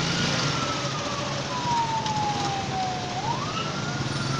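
Emergency vehicle siren wailing over the steady rumble of idling engines. The pitch sinks slowly, sweeps back up about three seconds in, and starts to sink again.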